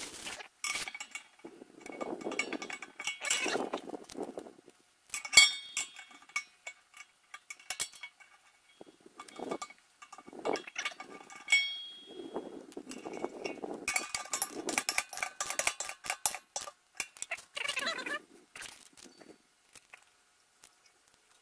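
Irregular small metal clinks from handling metal fittings and tools at a propane tank's valve, mixed with plastic bag rustling, in scattered clusters that fall quiet near the end.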